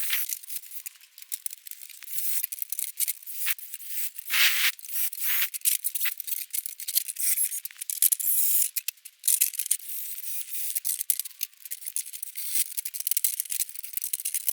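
Thin, high-pitched metallic scraping, rattling and clicks as a rivet is worked out of an old metal tackle box, with a few sharper knocks about four to five seconds in.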